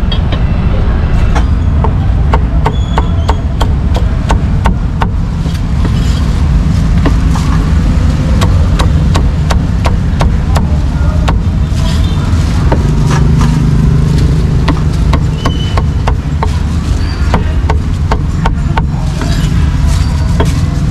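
A meat cleaver chopping roast meat on a thick round wooden chopping board: quick, irregular knocks, several a second, over a steady low traffic rumble.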